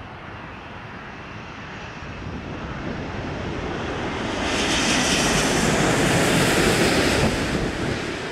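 Airbus A380's four Engine Alliance GP7200 turbofans on final approach, passing low overhead: a jet rumble that builds steadily, is loudest with a hissing whine for about three seconds past the middle, then begins to fade near the end.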